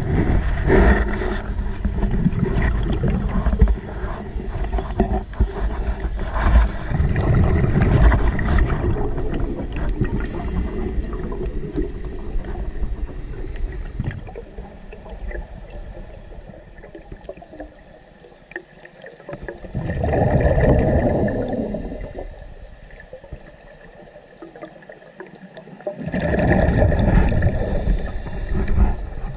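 Underwater recording of scuba bubbles gurgling: a dense, muffled rumble of bubbles and water noise for the first half, then two separate bursts of exhaled bubbles, each lasting two to three seconds.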